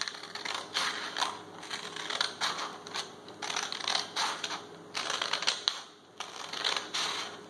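Scissors cutting through a sheet of paper along a line: a run of short, crisp snips, a few a second, with a brief pause about six seconds in.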